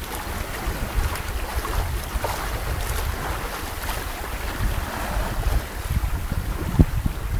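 Wind buffeting the microphone over water rushing and splashing along the hull of a Jantar 21 sailboat under sail in a choppy chop, with one sharper wave slap near the end.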